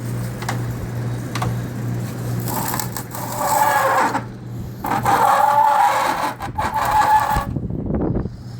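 GE Fashionaire window air conditioner running with its compressor on: a steady low hum, joined twice in the middle by a louder scraping, rubbing noise lasting a couple of seconds each.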